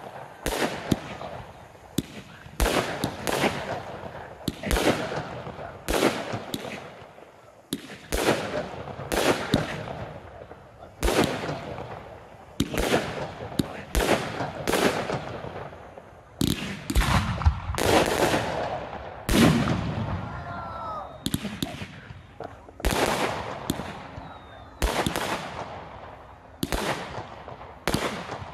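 Aerial fireworks shells bursting one after another, sharp bangs every second or so, each trailing off in a rolling echo.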